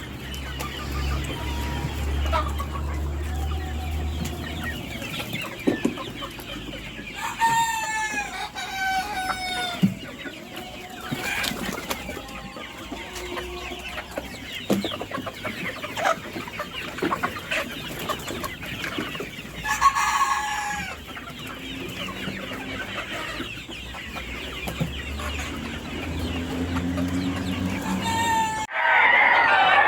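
A flock of desi chickens clucking and calling, with two louder crows from a rooster about a quarter and two-thirds of the way through. A low hum runs underneath at times, and the sound gets suddenly louder near the end.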